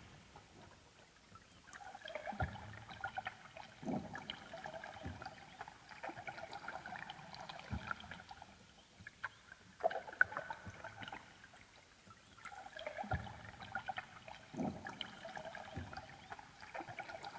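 Faint ambient electronic music: soft recurring swells of trickling, water-like tones, with scattered light clicks and a few soft low thumps.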